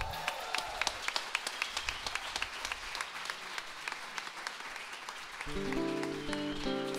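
Audience applauding with steady clapping. About five and a half seconds in, a guitar starts playing plucked notes and chords, opening the next song.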